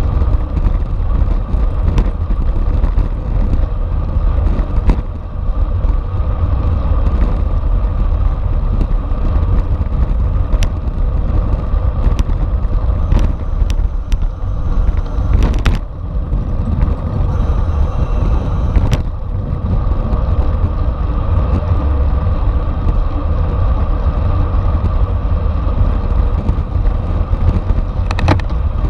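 Wind buffeting the microphone and road rumble while riding a racing bicycle at speed in a bunch, with a steady hum and scattered sharp clicks.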